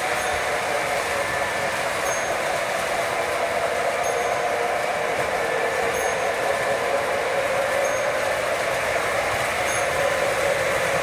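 O scale model trains running on the layout: a steady whir and rumble of the locomotive motors and the freight cars' wheels rolling over the track, with faint light ticks every couple of seconds.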